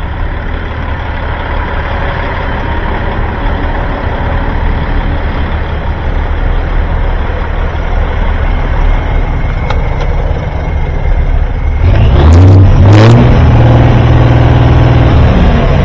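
A steady low rumble of idling semi-truck diesels; about twelve seconds in, a big-rig diesel engine is started by hand at the floor pedals, fires, revs up, and settles into a fast idle.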